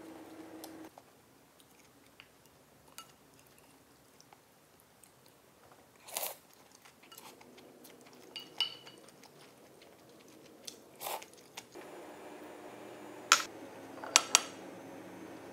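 Close-miked eating of Korean cold noodles: soft chewing with scattered sharp clicks of chopsticks and a wooden spoon against the ceramic bowl. The loudest knocks come near the end as the utensils are set down on the bowl.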